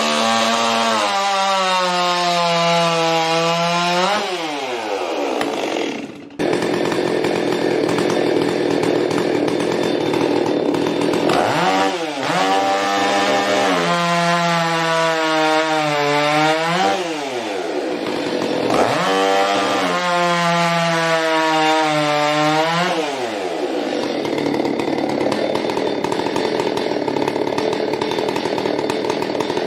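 Ported two-stroke chainsaws running at high revs and cutting wood, one saw after another: the engine note holds high, then falls away each time the throttle is released, with rougher stretches between.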